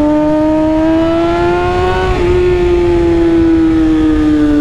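Kawasaki Ninja ZX-6R's inline-four engine pulling steadily at highway speed, heard from the rider's seat. Its note climbs a little over the first two seconds, breaks briefly about halfway, then slowly settles lower, over wind rush on the microphone.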